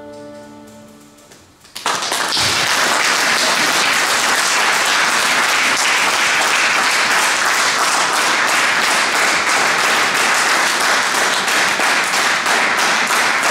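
The held final chord of the song's accompaniment fades out, then about two seconds in an audience breaks into loud, sustained applause, with single claps standing out more clearly near the end.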